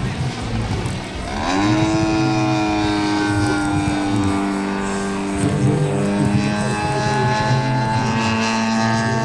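ZDZ 80cc petrol engine of a scale RC Piper PA-18 Super Cub rising in pitch as it opens up, about a second and a half in, then running steadily at high power.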